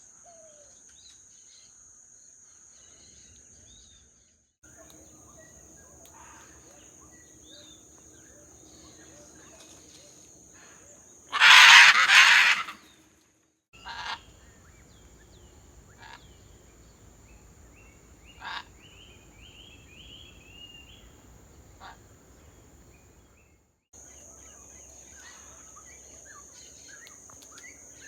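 Scarlet macaw giving one loud, harsh squawk about halfway through, followed by a few shorter, fainter calls. A steady high-pitched insect drone runs underneath.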